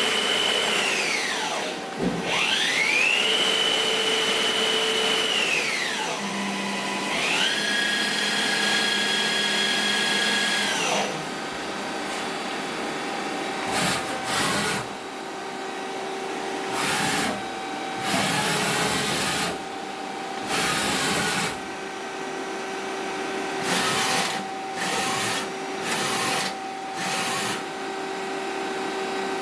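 Johnford SL-300 CNC lathe running under power. A drive whine falls away and climbs back to a steady high pitch twice. After that, short hissing bursts switch on and off every second or two over a steady machine hum.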